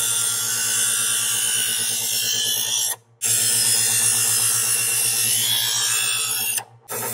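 Electric knife sharpener running with a steady hum while a dull kitchen knife is ground in its slots, with a hissing grind over the motor. It stops abruptly for a moment about three seconds in and again near the end.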